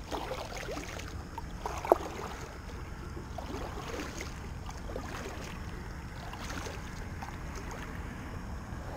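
Kayak paddle strokes dipping and splashing in calm water, with one sharp knock about two seconds in.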